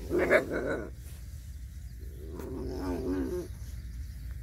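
A dog whining twice in short, wavering whimpers, one at the start and one about two and a half seconds in, over a steady low rumble.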